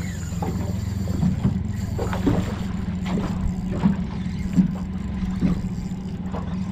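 A boat's motor idling steadily, with irregular soft knocks of water against the hull.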